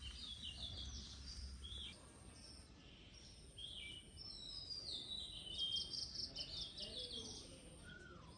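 Small birds chirping in a garden: many short, falling chirps and quick trills, busiest from about four seconds in, over a faint steady background hiss.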